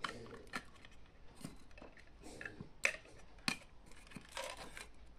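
Scattered small clicks and taps of parts being handled and fitted to the back cover of a home-built power supply case, with two sharper clicks around three seconds in and a brief rustle near the end.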